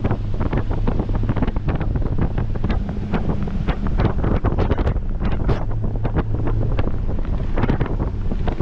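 Heavy wind buffeting the microphone in constant gusts, over a faint low steady hum.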